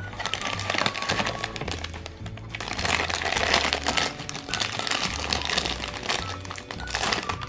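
Black foil blind bag crinkling and rustling as hands pull it from its box and tear it open, louder about three seconds in and again near the end. Background music with a steady bass line plays underneath.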